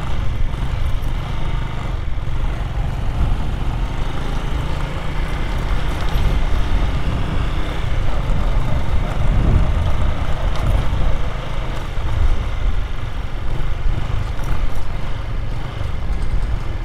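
Motorcycle running steadily while being ridden along a street, a continuous low rumble with a brief swell about halfway through.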